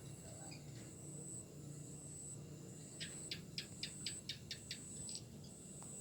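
A small bird gives a quick run of about nine sharp chirps, roughly five a second, over a steady high-pitched insect-like trill.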